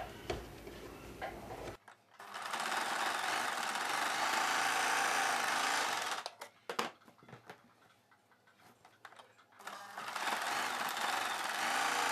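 Electric sewing machine stitching darts in blouse fabric, running steadily in two stretches of about four seconds each. Between them come a few clicks as the fabric is repositioned.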